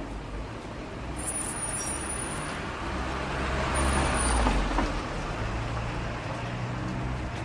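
City street traffic: a steady roar of road noise with a low engine hum, as a motor vehicle passes close by, loudest about four seconds in and then fading.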